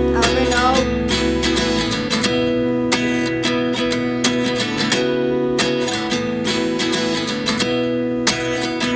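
Background music: a song's intro of strummed acoustic guitar chords, struck in a steady rhythm.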